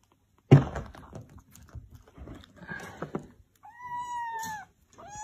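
A ginger kitten gives one long, high meow near the end, holding its pitch and dropping at the end. Earlier, about half a second in, a sudden thump is the loudest sound, followed by soft rustling.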